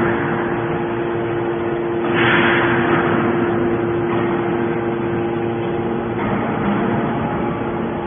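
Y81-250 hydraulic scrap metal baler running: the steady hum of its hydraulic pump, with a hissing rush about two seconds in that fades away over a second.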